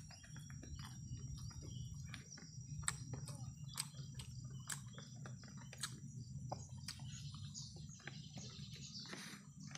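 Quiet, close mouth sounds of a man eating rice by hand: irregular wet chewing and lip-smacking clicks, with his fingers scraping the paper wrapper. A steady, high, thin insect buzz runs underneath.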